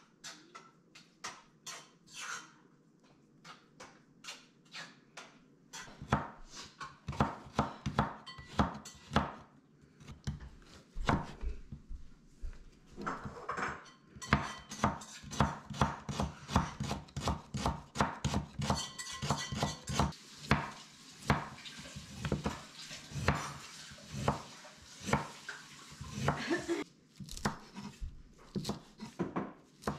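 Kitchen knife chopping hot chili peppers and cilantro on a wooden cutting board: rapid blade strikes on the board. The strikes are light and sparse at first, then louder and quicker from about six seconds in, broken by short pauses.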